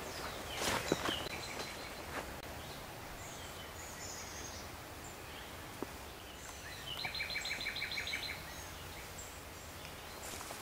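A few footsteps crunching through leafy brush about a second in, then a quiet woodland background. A bird calls a quick run of about ten repeated notes around seven seconds in, with fainter chirps before it.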